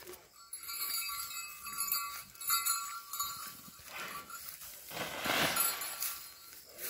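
Zebu bull goring the ground with its horns, head down: scraping and scuffing of soil and dry straw, with one louder burst a little after five seconds in that lasts under a second.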